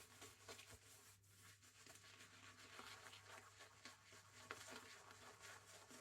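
Near silence, with the faint soft scratchy rubbing of a boar-bristle shaving brush working shaving soap into lather, over a low steady hum.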